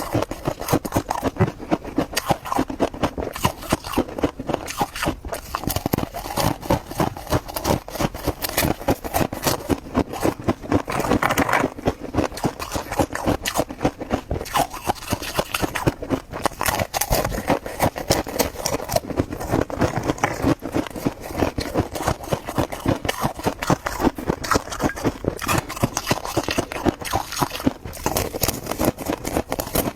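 Close-miked crunching and chewing of freezer frost, a dense, unbroken run of crisp crunches several times a second.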